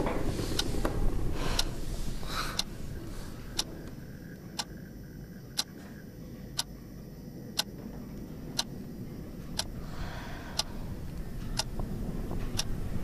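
A clock ticking steadily, about one tick a second, over a low room hum.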